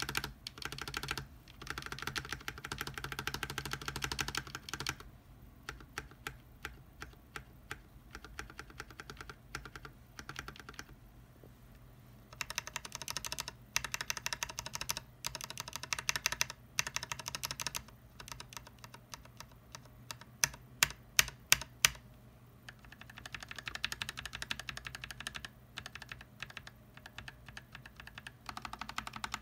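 Lubed Gateron Ink Yellow linear switches in an NK65 Entry Edition keyboard being pressed rapidly, most of them bare with the keycaps removed, giving runs of quick clacks. There is a short lull partway through and a few louder separate clacks later on.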